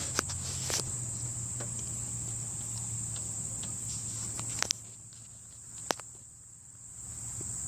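Crickets chirring steadily in a high, unbroken tone, with a few light clicks from handling nearby.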